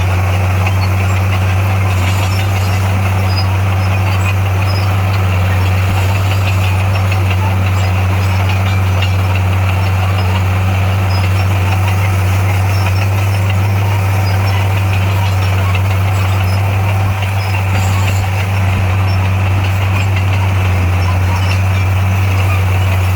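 Heavy-equipment diesel engine running at a steady speed, a loud, even low drone with no change in pitch.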